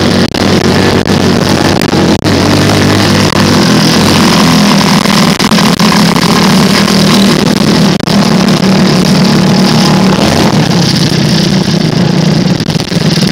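Off-road vehicle engine running loud and steady close to the microphone, with a couple of brief dips in level.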